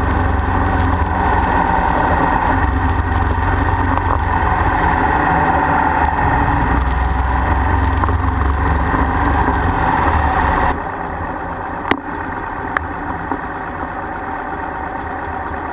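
Motorcycle engine running with wind noise while riding, as picked up by a camera mounted on the bike. About two-thirds of the way through it cuts to a quieter, steadier ride, with two sharp clicks.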